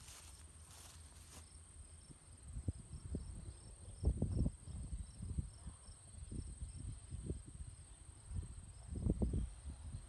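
Field insects trilling with a steady high tone, with low gusts of wind buffeting the microphone, strongest about four seconds in and near the end. A few brief rustles in the first second or so.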